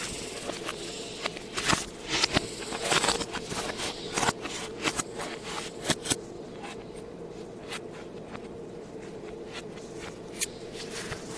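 Blu-ray packaging being handled, with the audio played backwards: clicks, scrapes and rustles of plastic and cardboard, busy for about the first six seconds and sparser after, over a faint steady hum.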